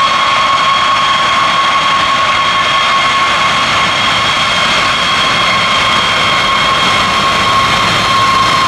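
A B-52H Stratofortress bomber's eight Pratt & Whitney TF33 turbofan engines running at taxi power as it rolls past: a steady, loud jet whine with high whistling tones.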